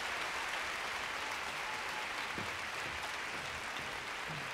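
Large concert-hall audience applauding steadily, greeting a performer who has just been introduced.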